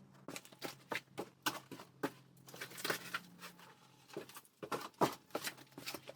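Irregular knocks, rattles and rustling as an old bicycle and the clutter around it are shifted and pulled about, with a faint steady low hum underneath.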